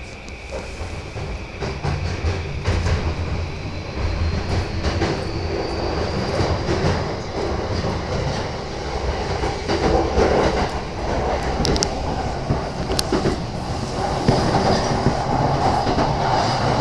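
Cabin sound of a JR East E235 series electric commuter train running under way: a low rumble of wheels on track with irregular clicks over rail joints. A thin electric whine from the traction motors rises in pitch over the first several seconds as the train gathers speed.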